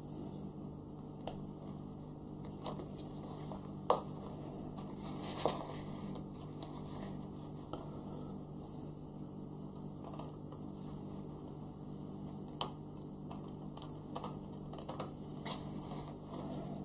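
Pointed hobby knife working through a thin laser-cut Artwox wooden deck sheet on a cutting mat: scattered small sharp clicks and light scratches as the blade picks and cuts the veneer, one every second or two, the sharpest about four seconds in.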